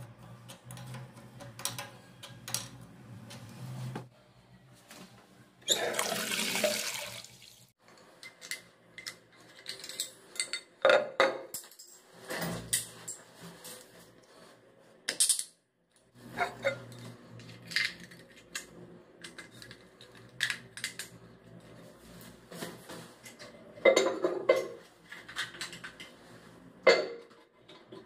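Spanner and metal plumbing fittings clinking and knocking in irregular bursts as a braided flexible supply hose is fitted to a washbasin connection, with one short rushing hiss about six seconds in.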